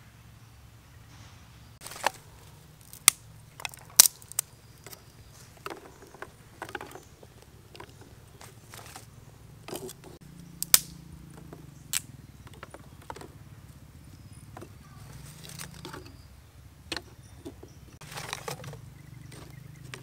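Dry firewood sticks handled and laid into a clay-lined bucket stove to build a small fire: scattered sharp clicks and knocks of wood against wood and against the stove.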